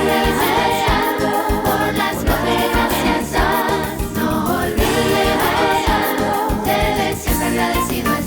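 Upbeat children's song with a choir-like sung or chanted melody over a steady beat, in its closing section.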